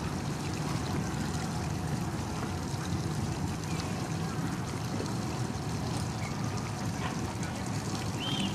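Harbour ambience: a steady low rumble of boat engines on the water, mixed with a light wash of water.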